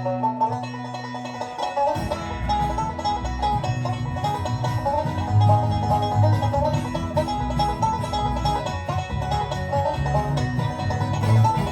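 Live bluegrass string band playing an instrumental passage, with banjo picking over guitar. About two seconds in, the bass and fuller band come in.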